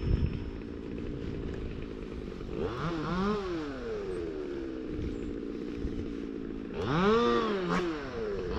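A small engine revving up and easing back down, three times: about two and a half seconds in, again about seven seconds in, and once more at the very end, over a low steady engine hum.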